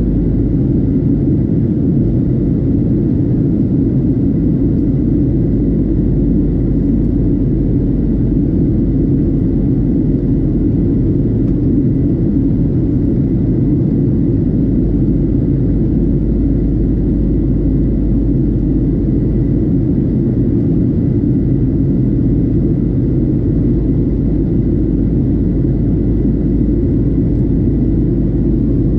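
Steady deep roar of a Boeing 737-700's CFM56-7B engines and rushing air, heard from inside the passenger cabin, with a faint high steady whine over it.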